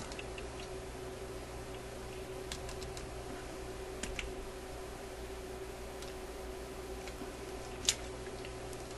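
A few sharp, scattered clicks and ticks from a pair of metal pliers or wire strippers gripping and working a wire, with the loudest click near the end. Under them runs a steady low hum.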